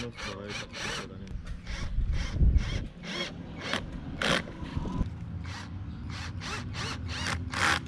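36V cordless drill driving screws into a camera mount on a concrete wall, run in a quick series of short, irregular bursts, about two to three a second, with a heavier rumble about two and a half seconds in.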